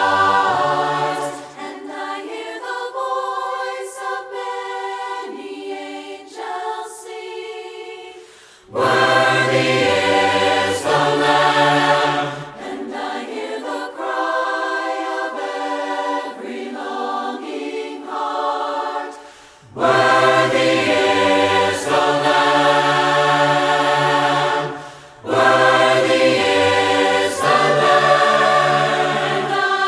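Mixed choir singing a hymn a cappella, in harmony and in long phrases. The low voices drop out for several seconds at a time, leaving the higher parts, then the full choir comes back in after short breaths.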